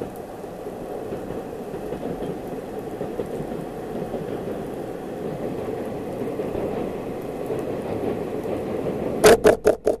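Kiha diesel railcar running toward and onto a steel truss bridge: a steady rumble that grows louder, mixed with wind-like noise. Near the end come four quick, sharp, loud knocks.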